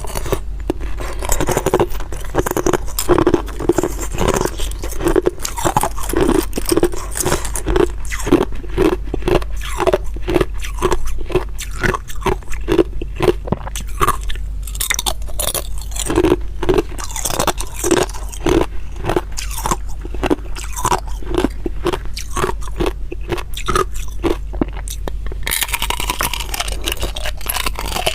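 Hard ice being bitten and chewed close to the microphone: repeated loud crunches in a steady chewing rhythm. A hissier scraping sound takes over near the end.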